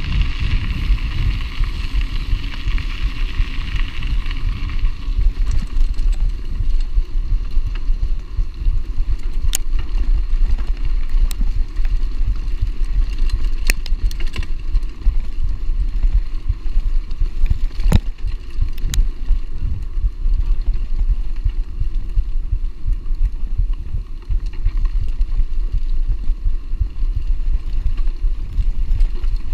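A mountain bike riding over a dirt and grass track: a steady low rumble of tyres and wind on the microphone, with a few sharp clicks and knocks from the bike.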